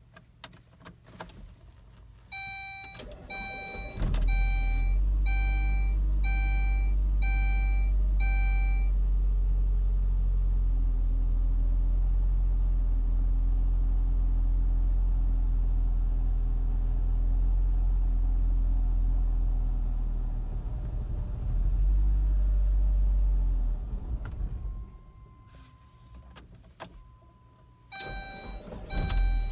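2002 Saab 9-3 SE engine on a cold start: it cranks briefly and catches about four seconds in, under a repeating warning-chime beep. It then idles roughly for about twenty seconds, stumbles, and stalls. The chime beeps again near the end.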